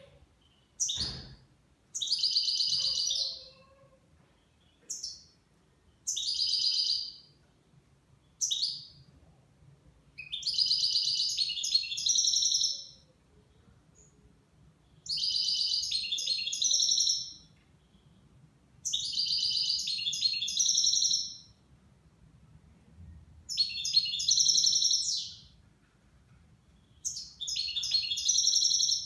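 A nine-month-old caged goldfinch singing in repeated phrases of fast, high twittering. The phrases are about ten in all, some brief and several lasting two to three seconds, with short pauses between.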